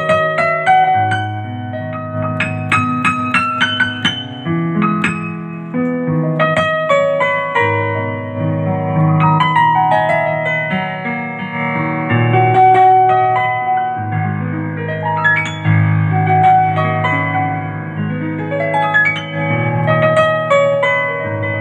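Yamaha digital keyboard's sampled CFX concert grand piano voice, played with both hands: a flowing melody over bass notes and chords, with a quick run of notes about three seconds in.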